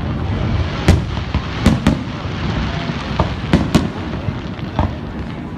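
Fireworks exploding: about six sharp bangs at irregular intervals, some in quick pairs, over a steady rushing background.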